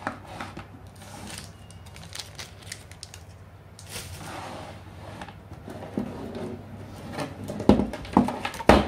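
Flat ribbon cables and plastic connectors of a modular power supply being handled: rustling and small clicks, with a few louder knocks near the end.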